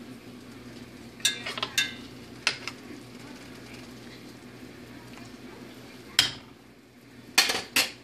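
Sharp metallic clanks and clinks of cookware and utensils knocking against a pot on the stovetop: a few in the first three seconds, then louder ones about six seconds in and near the end, over a steady low hum.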